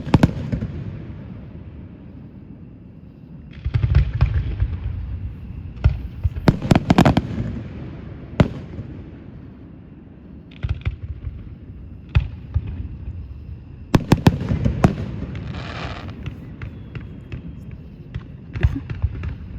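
Aerial fireworks display: booms and sharp cracks of shells bursting, coming in clusters every few seconds with low rumbling between.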